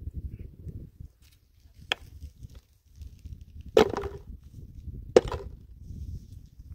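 Three sharp knocks, about a second and a half to two seconds apart, with the second the loudest, over a low rumble of wind on the microphone.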